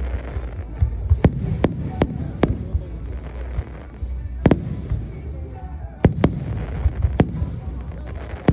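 Fireworks display: a string of sharp bangs from shells bursting overhead, about nine in all, some in quick pairs, over a steady low rumble.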